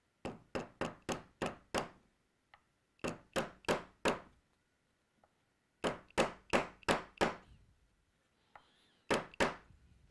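Small mallet lightly tapping a rosewood block to seat fret-marker dots into resin-filled holes in a rosewood fretboard. The taps come in quick runs of about three to four a second with pauses between, four runs in all, the last just two taps.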